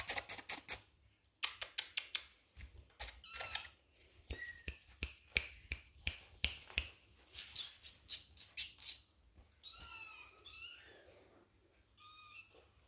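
Young Maine Coon kittens mewing with a few thin, high, wavering calls near the end, after a long run of rapid crackling and scratching as they crawl over their pad and bedding.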